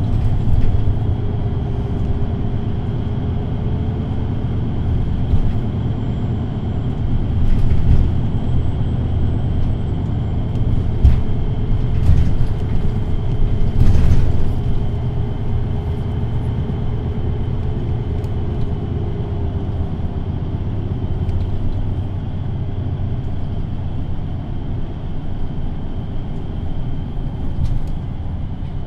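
VDL Citea LLE 120 low-entry city bus idling at a standstill, its engine running with a steady low rumble and a faint high whine. A few short clicks come through, with a brief louder burst about halfway through.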